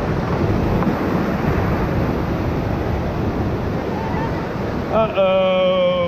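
Whitewater rapid rushing loudly around a raft, with wind buffeting the microphone. About five seconds in, a person lets out one long held shout.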